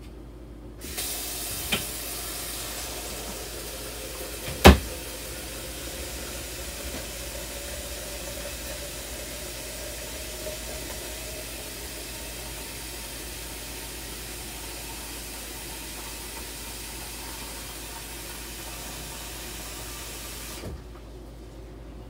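Water running from a tap into a plastic pitcher: a steady hiss whose pitch rises slowly as the pitcher fills. It comes on about a second in and is shut off suddenly near the end. A sharp knock comes about five seconds in.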